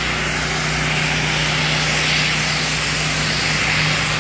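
Pressure washer spraying a steady jet through its 40-degree nozzle onto brick: a loud, even hiss of water, with a steady low hum underneath.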